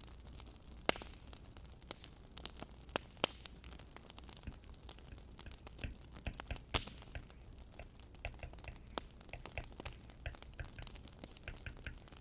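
Wood fire crackling, with irregular sharp pops and snaps over a low steady rumble.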